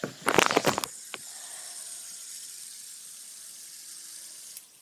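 Fidget spinner handled with a few sharp clicks and rattles, then spinning on its bearing with a steady hissing whir that stops abruptly near the end.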